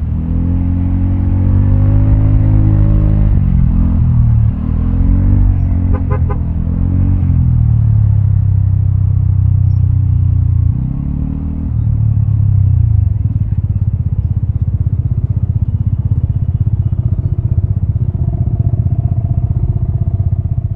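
Vespa automatic scooter's single-cylinder engine heard through a Prospeed Black CNC aftermarket exhaust, its pitch rising and falling with the throttle. About thirteen seconds in it settles to a steady low idle with an even pulse.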